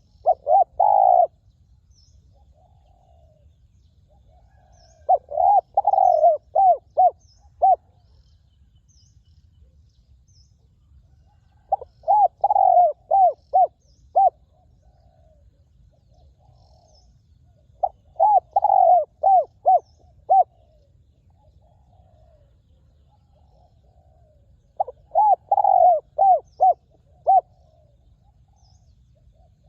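Spotted dove cooing: five phrases about six to seven seconds apart, each a few drawn-out coos that run into shorter, quicker notes. Faint high chirps from a small bird sound in between.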